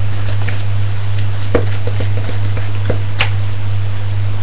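Wooden spoon knocking against a mixing bowl a few times as cake batter is creamed by hand, over a steady low hum.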